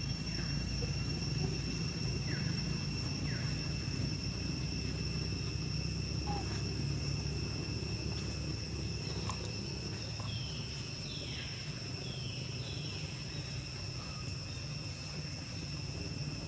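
Insects droning steadily in a high, unbroken tone over a low rumble. About two-thirds of the way in there are a few short chirps, each falling in pitch.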